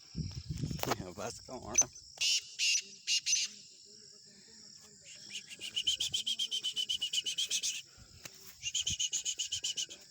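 Chukar partridge calling: a few short calls, then two runs of rapid chattering notes, about ten a second, over a steady high insect drone.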